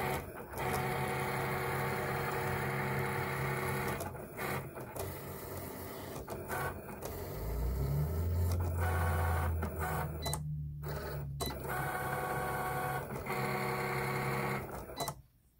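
Cricut Explore Air 2 cutting machine cutting cardstock: its motors whir in steady runs as the blade carriage and mat move, broken by a few short pauses, with a deeper hum for a couple of seconds in the middle. It stops near the end.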